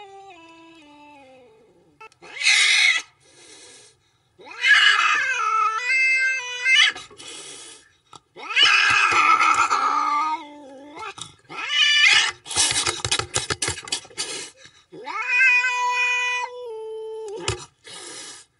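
A series of drawn-out, cat-like yowls, one after another with short gaps, each gliding up and down in pitch. About two-thirds of the way through there is a quick run of rattling clicks.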